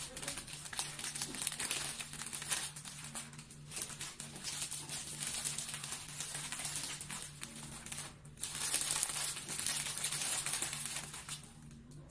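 Clear plastic film crinkling and rustling in irregular bursts with short lulls as it is pressed and folded by hand around a block of floral foam. A faint steady low hum runs underneath.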